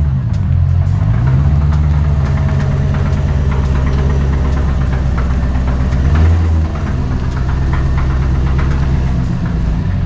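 Chevrolet C4 Corvette's V8 running at low speed as the car creeps into a garage. The engine note dips and climbs in the first second or so, then holds steady, easing off slightly about two-thirds of the way through.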